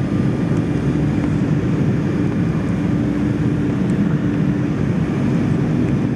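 Steady cabin drone inside an Embraer 190 airliner in flight, a mix of its turbofan engines and the rush of air past the fuselage, low and even with a faint steady hum on top.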